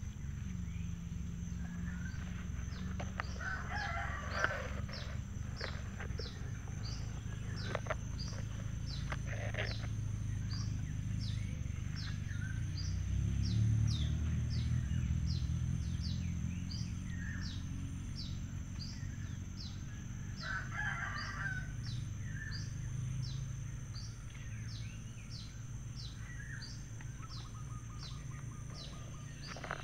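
Outdoor ambience: a steady high insect drone with a short, repeated chirp about twice a second, over a low rumble. A rooster crows faintly twice, about four seconds in and again around twenty seconds in.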